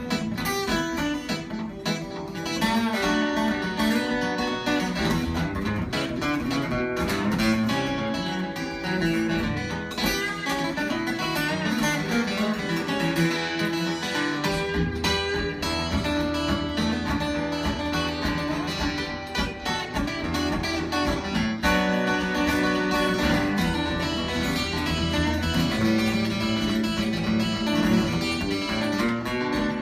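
Live band playing an instrumental break between verses, with guitar to the fore over the rhythm section and no singing. The low end fills out about halfway through.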